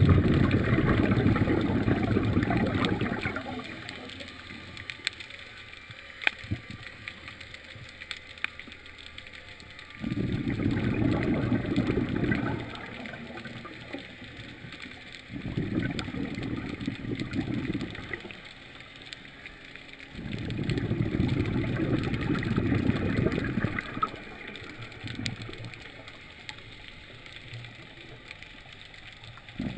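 A scuba diver's exhaled bubbles pouring from the regulator in four bursts of two to four seconds each, one per breath, with quieter stretches of faint scattered clicks between them.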